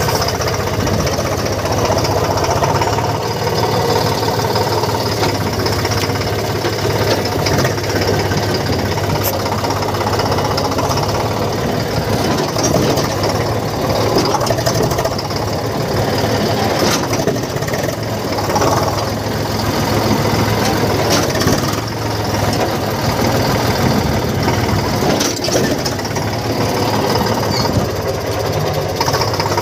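Eicher 485 tractor's three-cylinder diesel engine running steadily at working revs while pulling a disc harrow.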